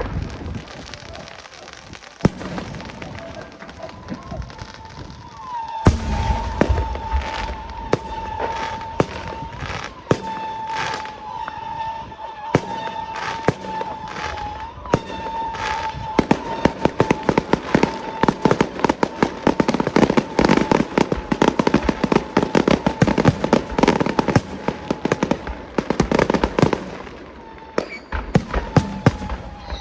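Fireworks and firecrackers going off: scattered sharp bangs at first, then from about halfway a dense, rapid crackle of many bangs. A steady high tone runs alongside from about six seconds in.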